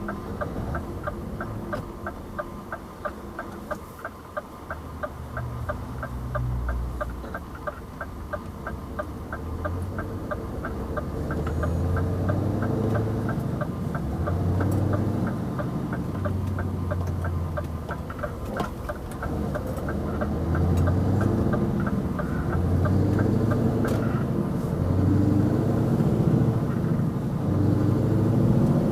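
Scania 770S's 16.4-litre V8 diesel engine running low, then pulling away and building revs in steps, louder from about ten seconds in. A turn indicator ticks steadily, about three clicks a second, and stops about three-quarters of the way through.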